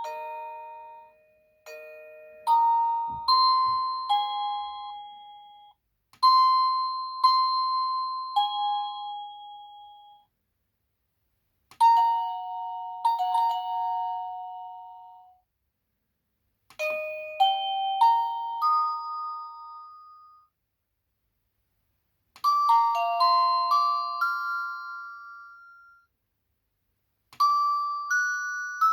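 EMASTIFF wireless doorbell chime unit playing its polyphonic ringtones one after another: six short electronic melodies of a few notes each, every one lasting three to four seconds and fading out before a brief silence and the next tune.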